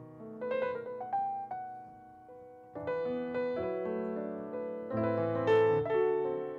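Grand piano playing jazz chords, each chord struck and left to ring and fade, with fresh chords about half a second, three seconds and five seconds in. A short bright hit sounds about five and a half seconds in.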